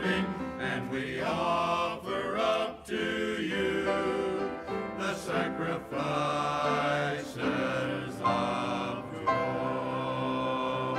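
Men's chorus singing, ending on a long held chord near the end.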